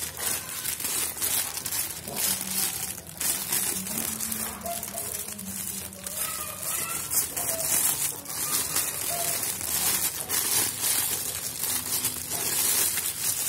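Plastic packaging being handled and unwrapped, crinkling and rustling throughout.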